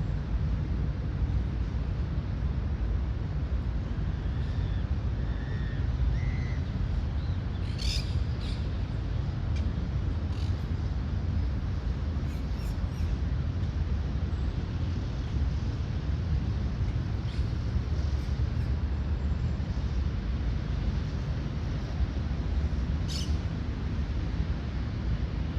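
Park ambience: a steady low rumble, from wind on the microphone or distant city traffic, with a few short bird chirps and scattered sharp high calls.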